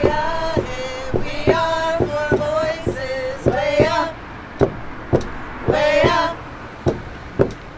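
Native American song: men and women singing together in long held notes over a steady drumbeat of about two beats a second.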